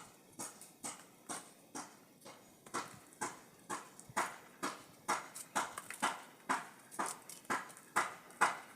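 Steady rhythmic knocking, about two sharp strikes a second, growing louder about three seconds in.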